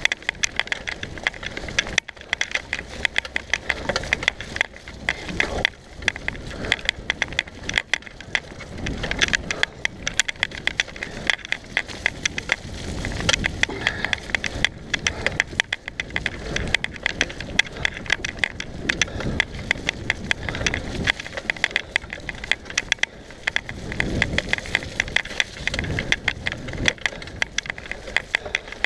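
Mountain bike ridden fast down a dirt singletrack: tyres running over the ground and the bike rattling over bumps in a constant stream of rapid clicks and knocks.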